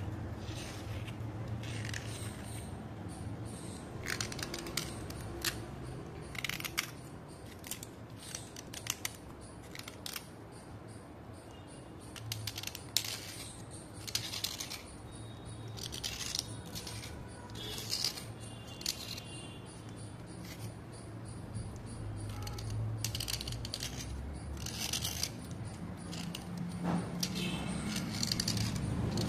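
Utility-knife blade scraping a slate chip in short, irregular strokes, shaving off fine powdery flakes.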